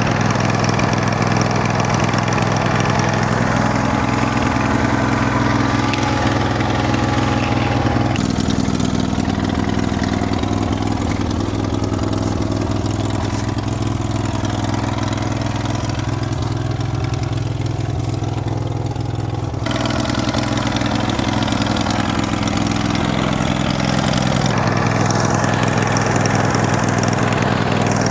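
Portable band sawmill's engine idling steadily, left running to charge the mill's battery. Its sound turns duller for a stretch in the middle, then returns.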